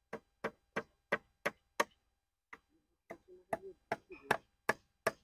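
Hammer blows, sharp knocks about three a second, with a pause in the middle and then a less regular run: nails being driven into bamboo for a fence.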